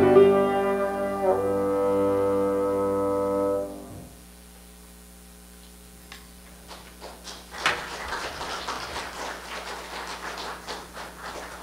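Bassoon and piano holding the final notes of a piece, cutting off about four seconds in. After a short pause, an audience starts clapping and keeps applauding.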